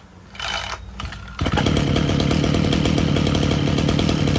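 Mitsubishi TL261 26cc two-stroke brush-cutter engine, 33 mm bore, started with a pull of the recoil starter: it catches about a second and a half in and runs steadily with a fast, even beat.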